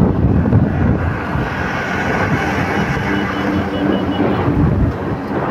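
Wind rushing over the microphone and road noise from a moving scooter in traffic, with a dump truck running alongside; a steady engine drone stands out through the middle.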